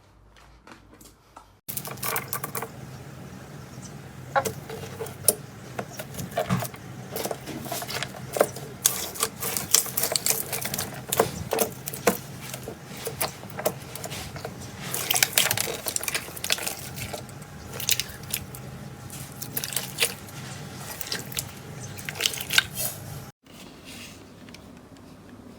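Slime being pressed and stretched by hand, giving a dense run of small crackling clicks and pops. The crackling starts abruptly about two seconds in and drops away suddenly near the end.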